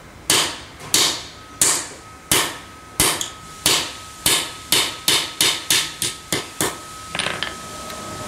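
Hammer striking a steel punch seated in a nose-changer jig on a chainsaw guide bar, knocking out the bar's replaceable sprocket nose. About fourteen sharp metallic blows come evenly at first and then quicker, stopping about seven seconds in, with a few light knocks after. A faint steady high ring runs beneath the blows.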